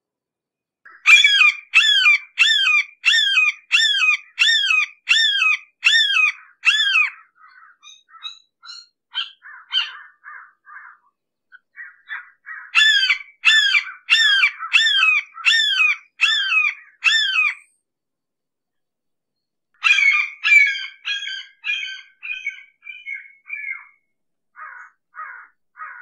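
Red-shouldered hawk calling a repeated series of loud, down-slurred screams, about two a second, in three bouts separated by softer, shorter notes. The last bout fades and drops in pitch.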